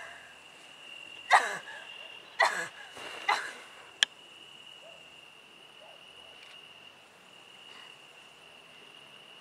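Three short wordless vocal cries, each sliding down in pitch, within the first few seconds, then a single sharp click about four seconds in. Under them runs a steady high cricket trill.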